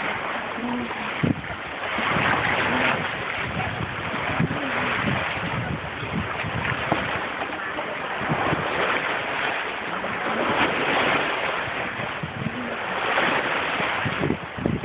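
Hurricane-driven surf and wind: a steady rushing roar that swells and eases every few seconds, with wind buffeting the phone's microphone.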